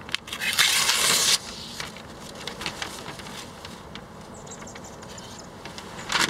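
Newspaper being sliced with a Masamoto kitchen knife along the grain of the paper: a loud papery hiss lasting about a second near the start. Quieter paper rustling follows, with a brief rustle near the end.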